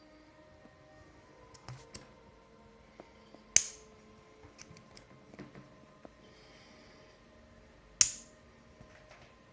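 Miniature gun firing twice, two sharp cracks about four seconds apart. Small clicks of the gun being handled and loaded come before and between the shots.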